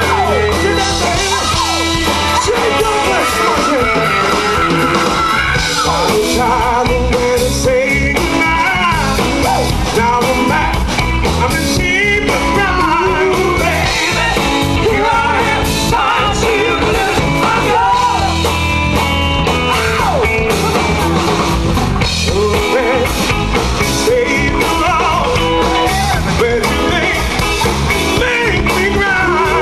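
Live band playing rock and roll, with singing over drums, electric guitars, bass and keyboards.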